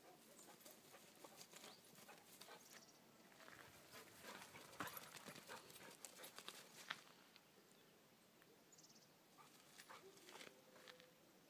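Faint, irregular footsteps crunching and knocking on a grassy, stony hillside, busiest around the middle and thinning out toward the end.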